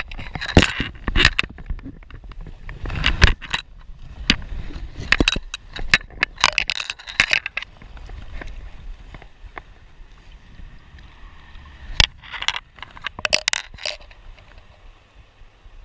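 Close, irregular handling noises: jacket rustle, scraping and crunching as someone moves over a wet creek bank and handles a trout at the water's edge, in uneven bursts with a quieter stretch in the middle.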